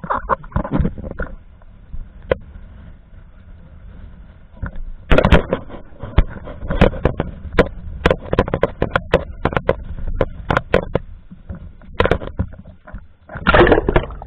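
Handling noise on an underwater camera housing: a string of irregular knocks, taps and scrapes as it is moved about and bumped, with a low rumble underneath.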